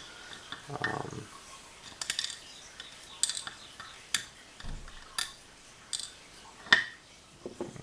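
Small metallic clicks and clinks of lock parts and tools being handled during disassembly of a pin-tumbler lock, about seven sharp ticks at irregular intervals, the loudest one near the end.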